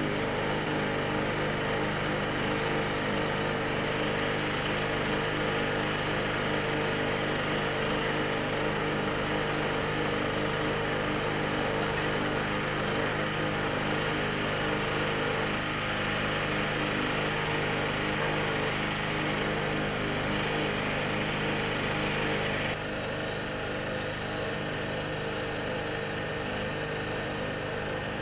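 Pressure washer running steadily, its motor droning under the hiss of the high-pressure spray washing a marble statue. The level drops a little about 23 seconds in.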